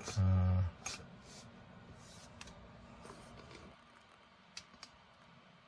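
A short hummed voice sound right at the start, then a few faint scattered clicks and light handling noises from the rolls of Velcro tape and their packaging.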